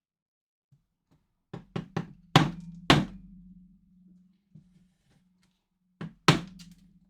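Hammer blows on a chisel, cutting material away: three quick light strikes, two heavy ones about half a second apart, then a light strike and a heavy one near the end, each leaving a short low ring.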